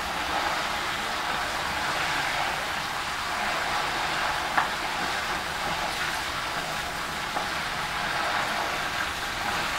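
Basil leaves deep-frying in hot oil in a wok, stirred with a wooden spatula: a steady sizzle, with one sharp click about halfway through.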